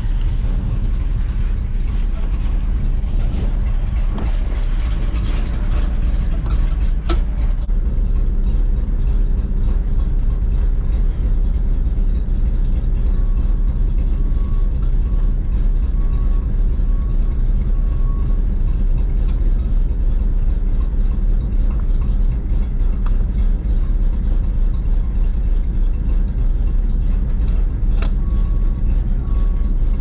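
Heavy truck engine idling steadily, with a sharp click about seven seconds in and another near the end.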